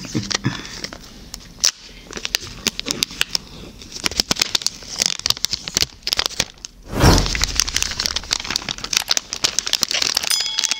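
Seal strips being torn off an iPhone 12 Pro box close to the microphone: a dense run of crackling and crinkling, with one louder rip about seven seconds in.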